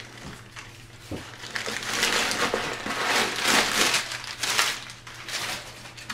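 Packing paper crinkling and rustling as it is crumpled and pulled out of a new backpack diaper bag, louder in the middle.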